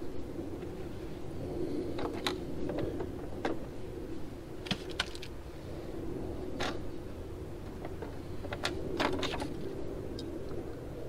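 Scattered light clicks and taps from pliers and hose-clamp fittings being handled while silicone vacuum hoses are routed, over a steady low hum.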